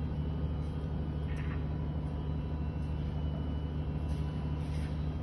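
SM-TK-150 tissue toilet paper and kitchen towel converting line running: a steady low machinery hum with a faint high whine and a few light ticks.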